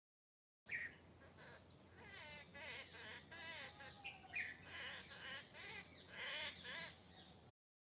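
Several songbirds chirping and singing together, a busy mix of quick chirps and warbling trills. It starts suddenly just under a second in and cuts off suddenly near the end.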